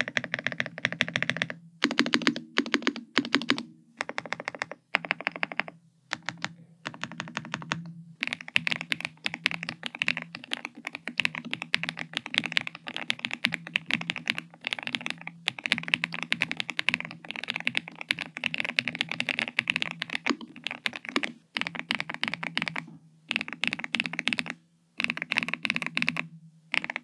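Epomaker TH99 mechanical keyboard in a plastic case, stock dampening and stabilizers, being typed on quickly. The keystrokes come in dense runs broken by a few short pauses, with a creamy typing sound.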